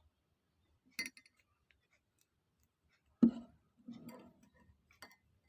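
A drinking glass and spoon being handled: a light clink about a second in, then a louder knock a little after three seconds followed by brief rattling and one more click.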